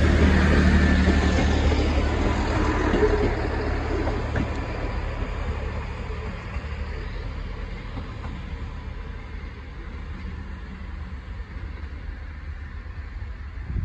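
Train rumbling as it pulls away, its low engine note fading steadily.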